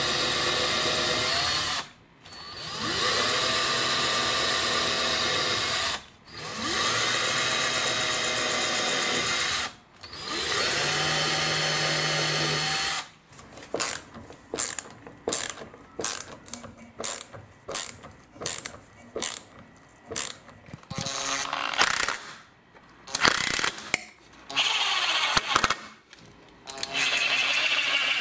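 Power drill drilling pilot holes for a bracket: four runs of a few seconds each, the motor pitch climbing as it spins up and dropping as it stops. From about halfway, many short trigger bursts follow as the bracket's screws are driven, with one more longer run near the end.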